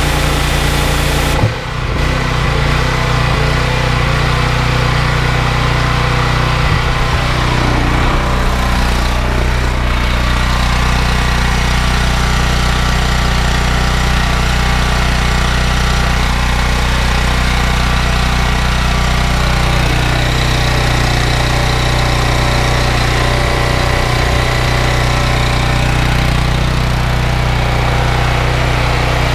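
Honda GX390 single-cylinder petrol engine running steadily at working revs, driving a belt-driven pressure washer pump, with a brief break in the sound about a second and a half in.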